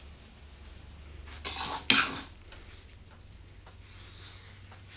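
A spoon scraping in a mixing bowl of dry rub, then one sharp clack against the bowl about two seconds in.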